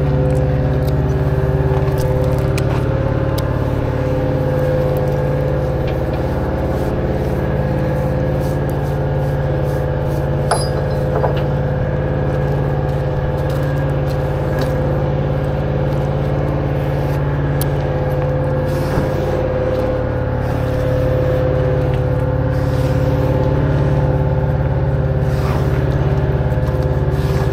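An engine idling steadily close by, with a few light clicks and clinks as the load is strapped down.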